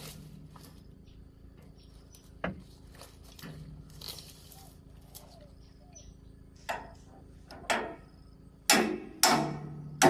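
Scattered light clicks and knocks, then near the end a run of loud, sharp strikes that ring briefly, coming about one every half second or so.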